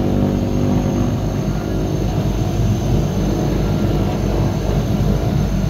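Turboprop engine and propeller of a small high-wing passenger plane running as it taxis after landing, heard from inside the cabin: a steady loud drone with a low pulsing underneath.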